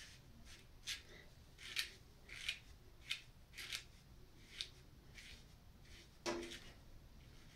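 Faint, short crisp rustles as fingers tease and pick through a short synthetic wig's hair, about one every half second to second, with a fuller one about six seconds in.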